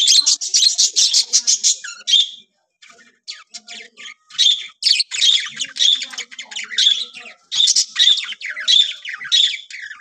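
A flock of budgerigars chirping and squawking in rapid, overlapping chatter, with a short lull about two and a half seconds in.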